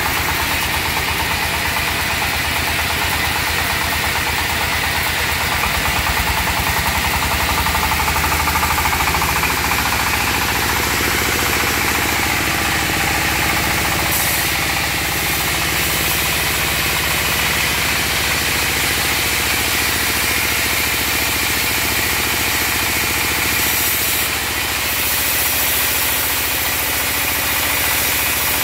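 Single-cylinder diesel engine running steadily with a rapid even chugging, driving a portable band sawmill.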